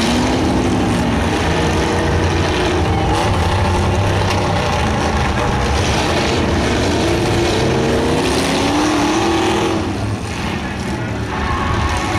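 Demolition derby cars' engines running and revving over a loud, steady rumble, their pitch rising and falling several times.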